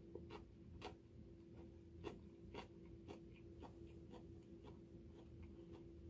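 Faint chewing of a butterbur-leaf wrap: soft crisp clicks about twice a second, uneven in strength, over a steady faint hum.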